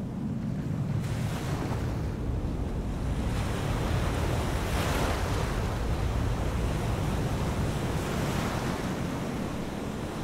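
Wind rushing and buffeting the microphone, a steady rushing noise with a heavy low rumble that swells a little about halfway through.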